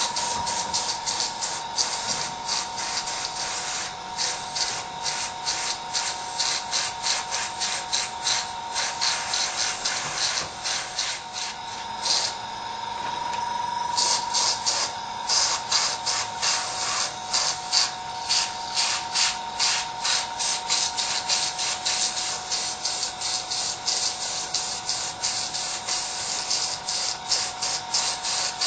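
Airbrush spraying in rapid short hissing bursts, several a second, with a short break about twelve seconds in, over a steady high hum.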